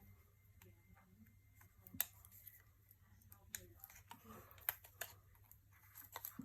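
Faint, scattered taps and clicks of fingers on a phone's glass screen protector as the touchscreen is tried out, a few sharp ticks a second or so apart.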